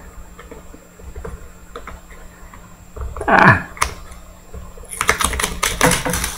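A sealed trading card pack's wrapper being torn open along its rip cord: light scattered crinkling and clicks, a short sound falling in pitch about three seconds in, then a dense run of sharp tearing and crackling from about five seconds in.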